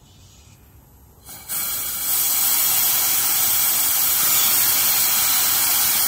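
Compressed-air blow gun hissing as air is forced through a truck's air-conditioning evaporator to purge the old refrigerant oil. The hiss comes in about a second and a half in, reaches full strength by two seconds, and then holds steady.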